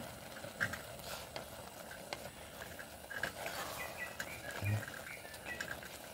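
Wooden spatula stirring noodles in a Quechua MH500 camping pot, tapping and scraping against the metal pot in scattered light knocks over a faint steady hiss.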